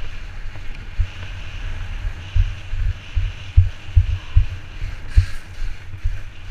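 Mountainboard rolling fast down a gravel track: its tyres rumble over the loose stones, with irregular low thumps from bumps and wind buffeting the microphone.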